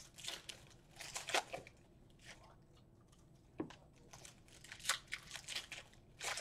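Faint, scattered rustling and crinkling of things being handled, with a few short, sharp taps.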